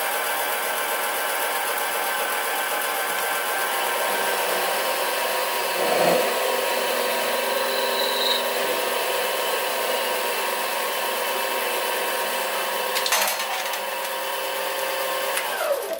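Sieg SC3 mini lathe running with a steady whine while a 1/2-inch steel bar is drilled through and then parted off. The motor winds down and stops just at the end.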